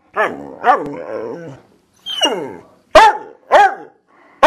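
A dog barking over and over, about six loud barks, two of them drawn out with a falling pitch. She is barking for attention because the petting has stopped.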